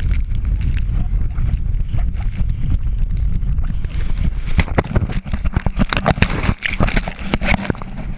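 Heavy wind buffeting a handheld camera's microphone as it rides along on a towed tube at speed, with a run of sharp knocks and rustles from about halfway in until near the end.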